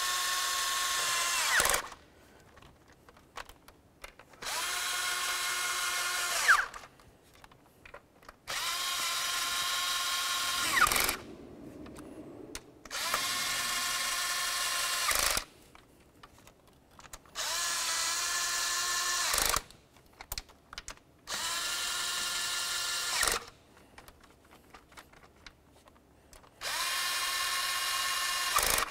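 Cordless drill/driver with a socket running intake manifold bolts down, one bolt at a time. There are seven separate runs of a steady motor whine, each about two seconds long, with short pauses between them. The bolts are being snugged in sequence before final torquing.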